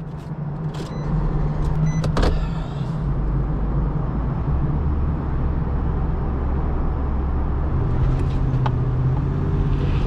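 Truck engine running steadily, its deep low rumble swelling for several seconds in the middle, with a few short clicks about one to two seconds in.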